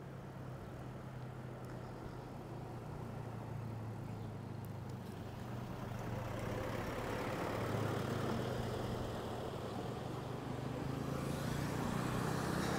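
Road traffic: cars running along a seafront road, a low engine hum with tyre noise that grows gradually louder as the vehicles come closer.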